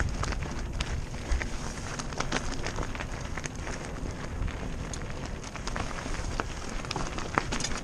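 Mountain bike descending rocky, loose singletrack: tyres crunching over gravel and stones, with a steady run of clicks and rattles from the bike over a low rumble.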